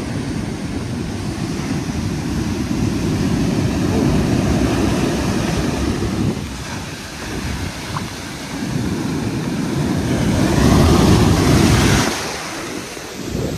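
Ocean surf breaking and washing up the beach, with heavy wind buffeting on the microphone. About ten seconds in a wave surges up loud and foaming, then falls away suddenly.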